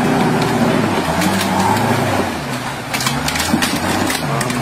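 Rock-crawler buggy's engine revving up and down under load as it climbs over boulders, with a cluster of sharp knocks and cracks about three seconds in as the tyres and chassis grind on the rock.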